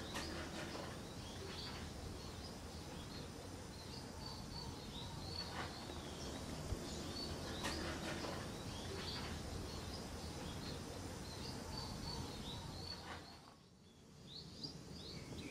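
Background ambience of small birds chirping over a steady hiss of noise. It dips briefly near the end, then the chirping picks up again.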